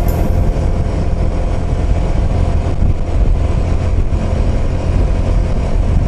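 Motorcycle riding at a steady road speed: a steady low rumble of engine and wind noise.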